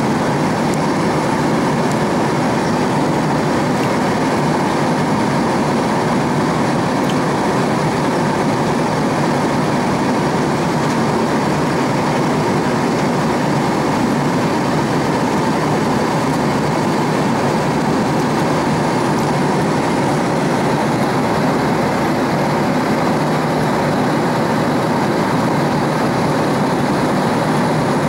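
Steady cabin noise of a Boeing 767-300ER airliner in cruise, heard from a window seat beside the engine: a constant rush of jet engine and airflow that holds level throughout.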